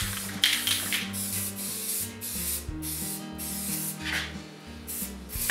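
Aerosol spray-paint can hissing in several short bursts as paint goes onto cast-iron lathe parts, over background music.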